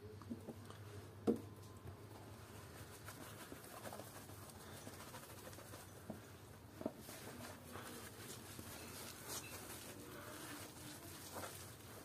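Faint, light pattering and soft clicks of washing powder and liquid soap being applied to a wet, foam-covered plush toy, with a sharp tap about a second in and another near seven seconds in.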